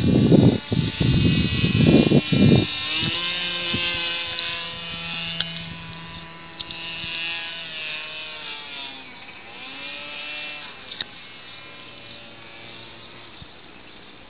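A few loud bursts of noise on the microphone in the first three seconds, then a small aircraft's engine whining overhead, its pitch sliding up and down as it flies by and slowly fading.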